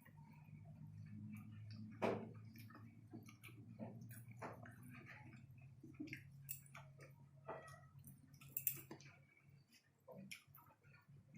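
Faint eating sounds: chewing, with scattered small clicks and taps. A low steady hum underneath fades out near the end.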